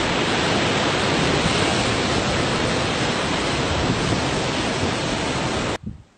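Steady rushing noise of ocean surf and steam where lava pours off a sea cliff into the sea, cutting off suddenly near the end.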